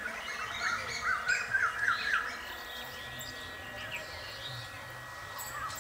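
Birds chirping: a quick run of repeated chirps from about half a second to two seconds in, and a shorter run near the end.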